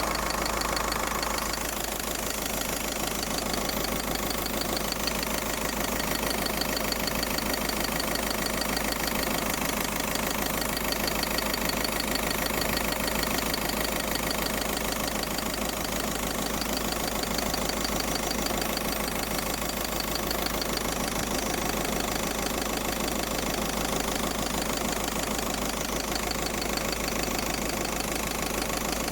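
Engine idling steadily, with a hissing noise over its running.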